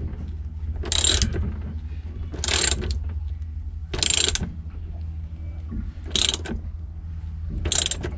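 Socket ratchet wrench clicking in five short bursts, about one every second and a half, as it is swung back between strokes. It is tightening the nuts on a deck cleat's bolts against a backing plate.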